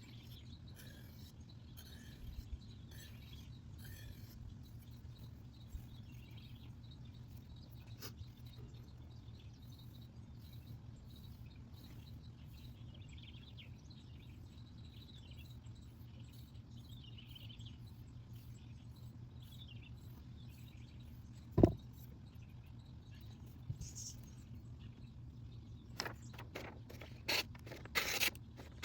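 Quiet background with a steady low hum and faint bird chirps, and one sharp knock a little over 20 seconds in. From about 26 seconds a run of quick scraping strokes follows: the freshly sharpened knife slicing through paper.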